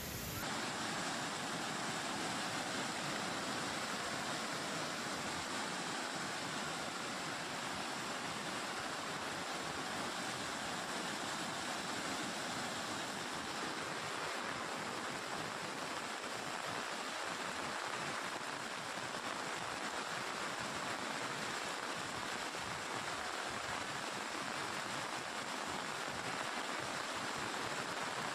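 Steady rush of fast-flowing floodwater in a swollen, muddy river.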